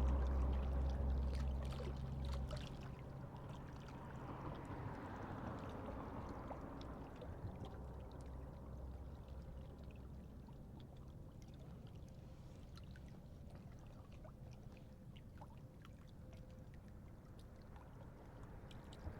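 Motorboat engine running on the lake, a steady low hum that fades away over the first few seconds as the boat moves off, leaving a faint drone and a few small ticks.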